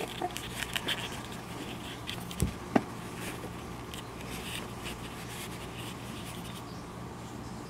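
Quiet handling noise: faint scratchy rustling and light ticks, with two soft knocks about two and a half and three seconds in, over a steady low hum.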